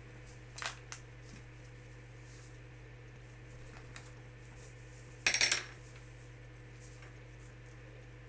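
Small hard objects clattering on a desk: a couple of light clicks near the start, then a louder quick rattle of clicks about five seconds in. A steady low hum runs underneath.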